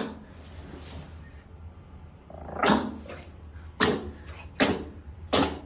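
Pomeranian sneezing over and over: four sharp sneezes less than a second apart in the second half.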